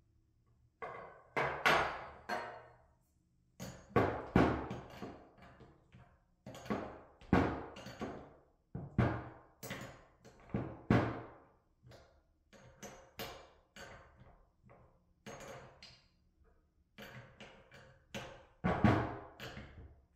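Socket ratchet clicking in repeated short bursts as a bolt is worked on a hydraulic control valve's cable fittings, with light metallic clinks of tools on the table.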